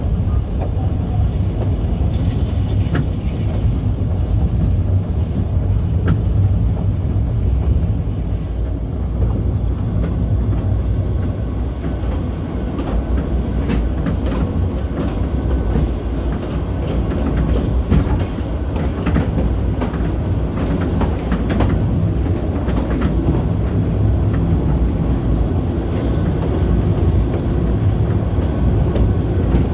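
Kurobe Gorge Railway narrow-gauge train running, heard from its open-sided Ha-type passenger car: a steady low rumble of wheels on rail, with a thin high wheel squeal now and then in the first ten seconds and irregular clacks and knocks from the wheels and track in the second half.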